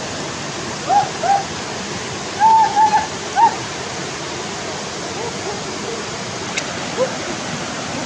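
River water rushing steadily over rocks. Several short, arched high calls sound in the first half, in a quick cluster of three to four near the middle.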